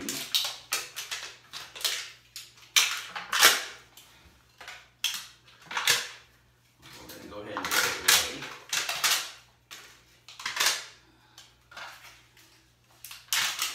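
Plastic packaging of a toilet wax ring crinkled and torn open by hand, in irregular rustling bursts.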